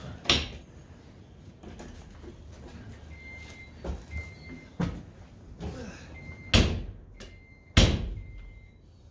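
Several sharp knocks or bangs, like a door or latch banging shut, the loudest two near the end, with a short high beep repeating between them.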